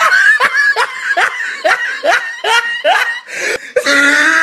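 Loud high-pitched laughter in short falling bursts, two or three a second, breaking into a long held squeal near the end.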